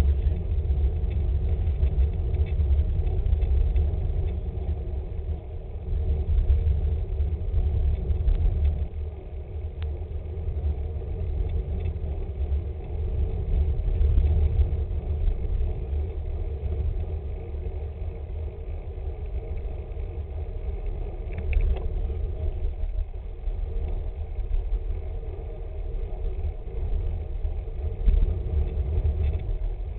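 Wind buffeting the microphone of a bike-mounted camera while riding a road bike, a low rumble that rises and falls in gusts, over the hum of tyres on the road.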